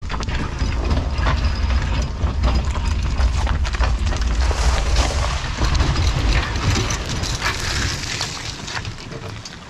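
Wind buffeting the camera microphone: a heavy, uneven low rumble with hiss and scattered clicks on top, easing off near the end.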